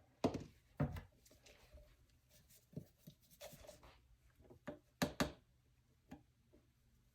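Faint scrubbing and scraping as a knife blade is rubbed with a sponge and Bar Keepers Friend powder, with a few light knocks of the knife and sponge being handled, two close together about five seconds in.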